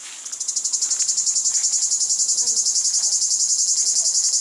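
Cicada singing: a loud, high-pitched buzz made of rapid, evenly spaced pulses, swelling up over the first half second and then holding steady.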